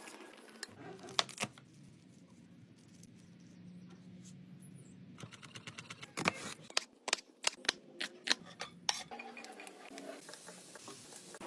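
Kitchen handling sounds: sharp clicks and clinks of utensils against dishes, with a quicker run of taps and knocks in the second half.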